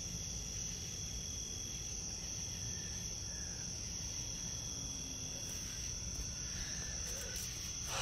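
Night-time insect chorus: a steady, high-pitched ringing drone that holds unchanged throughout, with a low rumble underneath.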